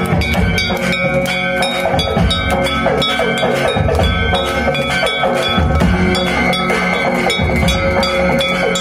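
Devotional aarti music, with drums and ringing bells striking a fast, even beat under sustained tones.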